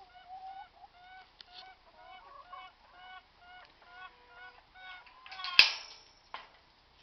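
A hen shouting: a run of short, agitated calls, about three a second, that stop about five seconds in. Just after, a single sharp knock that rings briefly, the loudest sound here, with a fainter knock following.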